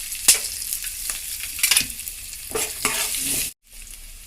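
Peanuts and cashews sizzling as they fry in a kadai, with a spoon stirring and scraping through them several times. The sound cuts out abruptly about three and a half seconds in and comes back quieter.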